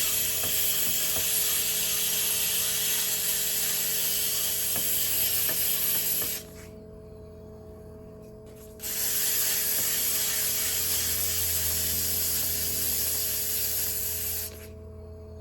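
A 400-grit diamond sanding pad grinding against the bottom of a fired pot spinning on a pottery wheel, making a steady wet hiss over the steady hum of the wheel motor. The sanding breaks off for about two seconds partway through and stops again just before the end, leaving only the wheel's hum.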